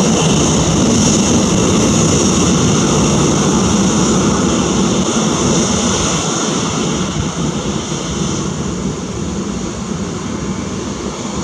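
Boeing 737-800's CFM56-7B jet engines running at low taxi power as the airliner rolls away after landing: a steady whine of several high tones over a low rumble, growing slightly fainter in the last few seconds.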